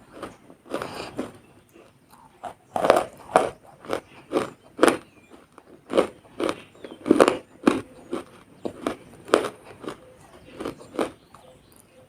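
Close-up biting and crunching of something wet and crunchy, a series of irregular crunches about one to two a second.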